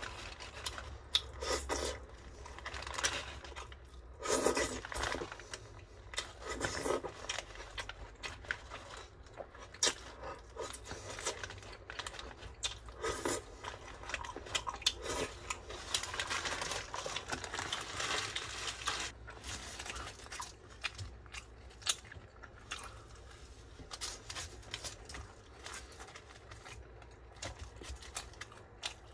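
Paper burger wrapper crinkling and rustling in irregular bursts as fingers pick dropped bits of food out of it, with some chewing in between.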